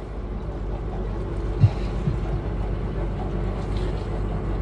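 Tour boat's engine running steadily with a low hum, and a brief low thump a little over a second and a half in.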